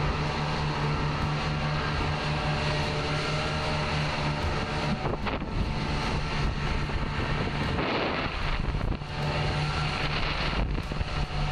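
Motorboat under way: its engine runs with a steady low hum, mixed with wind buffeting the microphone and water rushing along the hull. A gust of wind noise swells about eight seconds in.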